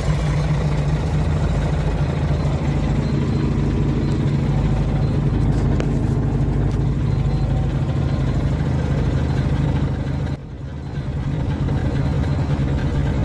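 Heavy truck's diesel engine idling steadily, with a brief dip in level about ten seconds in.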